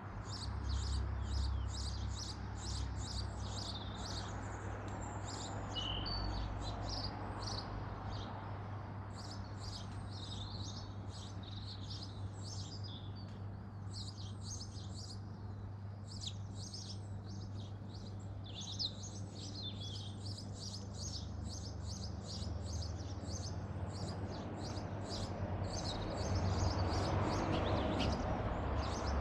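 Garden birds chirping and twittering almost without pause, many quick high calls a second, over a low steady background rumble that grows louder near the end.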